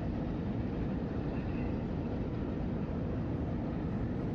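Steady low rumble of airport background noise, with no separate event standing out.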